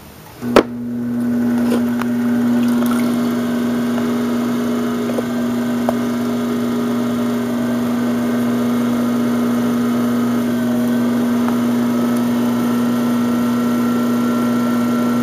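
Electric pottery wheel motor humming steadily with a low, even tone. A sharp click about half a second in is followed by the hum swelling up over a second or so.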